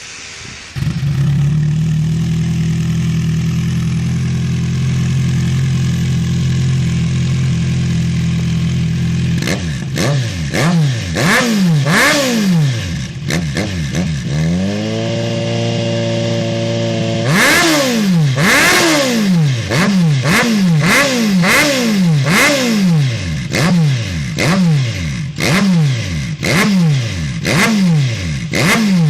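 Kawasaki Z1000 inline-four engine through a full stainless-steel aftermarket exhaust system: it idles steadily from about a second in, then is revved in a series of quick throttle blips, held at a raised engine speed for a couple of seconds, and blipped again repeatedly, about once a second.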